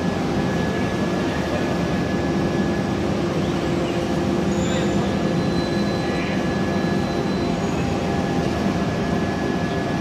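Ring rolling mill on a forging line running: a steady mechanical drone with several constant hums and no distinct blows.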